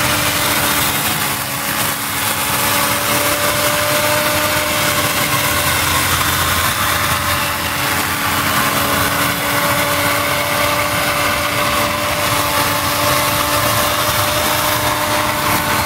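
Corded electric chainsaw running at a steady speed while its chain cuts through the body of a Mekong giant catfish: an even motor hum with a few steady tones over the hiss of the chain.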